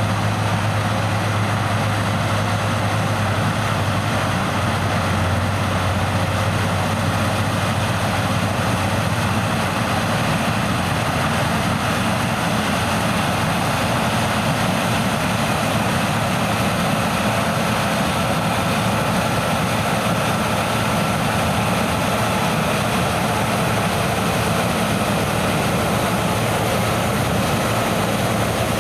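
New Holland combine harvester running steadily while harvesting corn: a constant diesel engine and machinery drone, with a faint steady whine over it for part of the time.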